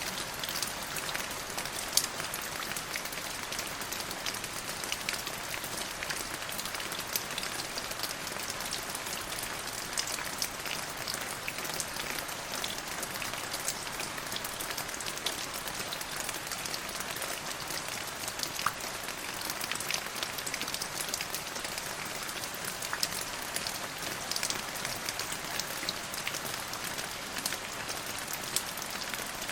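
Steady rain falling on a hard surface, a constant hiss dotted with many separate drops ticking.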